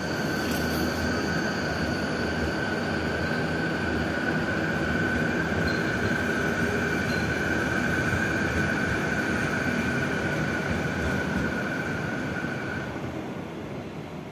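Renfe Class 449 electric multiple unit pulling away through the station: a steady rumble with a steady high-pitched whine over it. The whine stops near the end as the train recedes and the sound fades.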